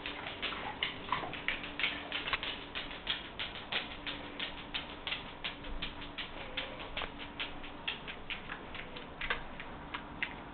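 Quick, irregular clicking or tapping, about four clicks a second, over a faint steady hum.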